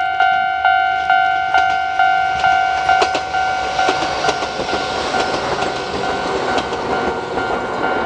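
Level crossing warning bell ringing in even strikes about twice a second. Over it, a Chichibu Railway 1000 series electric train, a former JNR 101 series, passes close by from about three seconds in, its wheels clacking over the rail joints for several seconds.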